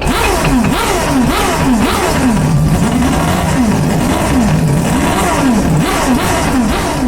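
Animated bulldozer's engine sound effect, revving up and down over and over as it works: a string of falling-then-rising pitch sweeps, roughly one or two a second.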